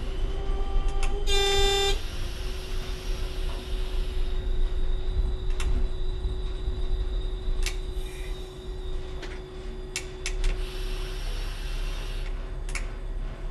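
Y-train diesel railcar running, heard from the driver's cab: a short horn blast about a second and a half in, over a steady low rumble. Scattered sharp clicks follow in the second half.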